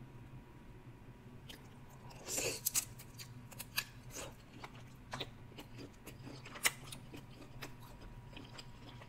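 Close-miked eating sounds: biting and chewing butter-sauced boiled seafood, with wet mouth clicks scattered throughout and a louder bite about two and a half seconds in.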